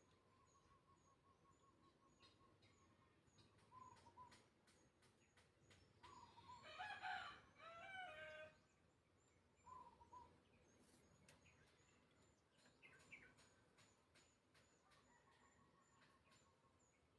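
A rooster crowing once in the background, one drawn-out call of about two seconds near the middle, over a faint quiet background with short repeated bird calls and a few light clicks.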